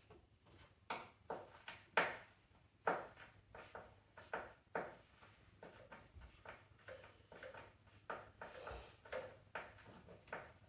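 Irregular clicks and knocks of hand tools and plastic engine-cover parts being handled while the top air filter housing of a diesel engine is taken apart.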